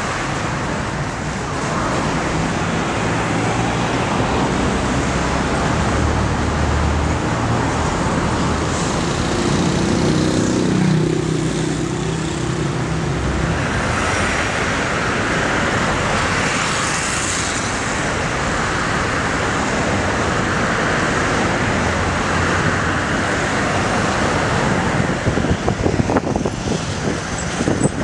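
Traffic on a busy city road: cars and a city bus drive past continuously. A low engine hum dominates the first half and tyre noise the second, with a louder, uneven stretch near the end as a bus passes close.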